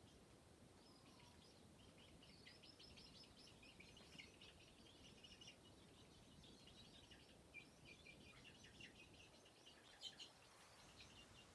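Faint, rapid, high-pitched bird chirping, many short notes running together, with a couple of slightly louder notes around ten seconds in.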